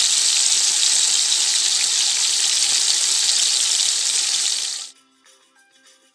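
Loud, steady sizzling of a marinated mutton leg searing in hot oil in a pot. It cuts off suddenly about five seconds in, leaving faint background music.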